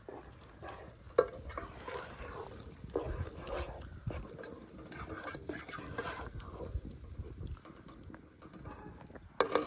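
A spoon stirring masala with onion, garlic and tomato as it fries in oil in a pan: irregular scraping and knocking against the pan, one sharper knock about a second in, over a faint sizzle.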